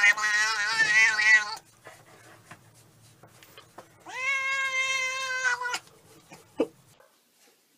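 Tabby cat meowing into the camera: a long, wavering meow that stops about a second and a half in, then a second long, steadier meow about four seconds in.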